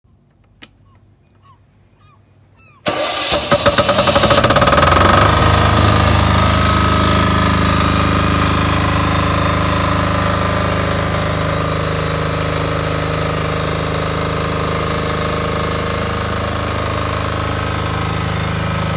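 Key-start, air-cooled single-cylinder diesel generator: about three seconds in, the electric starter cranks it and it fires within about two seconds, then runs at a steady speed.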